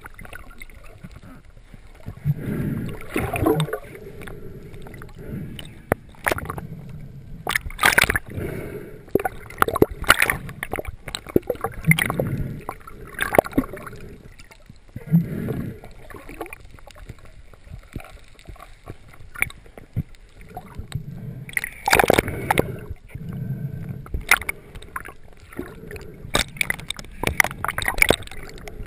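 Water gurgling and sloshing close to the microphone, broken by irregular knocks and splashes.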